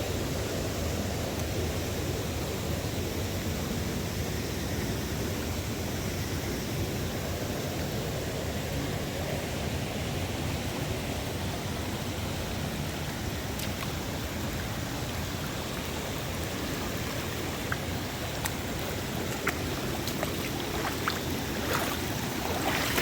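Steady rush of a waterfall and stream, even and unbroken, with a few small clicks near the end.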